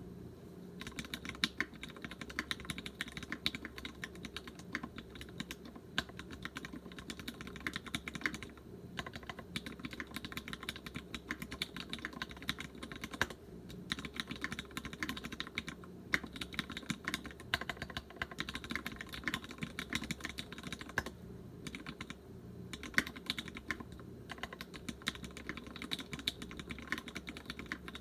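Continuous fast typing on a TX75 V2 mechanical keyboard with a brass plate and Gateron Ink Black linear switches lubed with Tribosys 3204. It is a dense run of keystrokes, broken by a few brief pauses.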